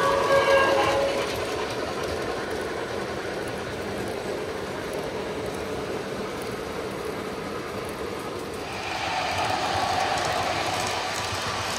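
O gauge model trains rolling on three-rail track: a steam locomotive's whistle ends about a second in, followed by the steady rolling of passenger cars. About nine seconds in, the rolling grows louder as a model Amtrak diesel passes close by.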